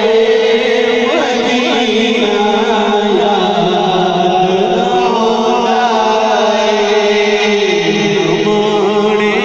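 Men singing a naat, Urdu devotional verse, with no instruments, amplified through microphones. A lead male voice carries a wavering melody over a steady drone held by the backing voices.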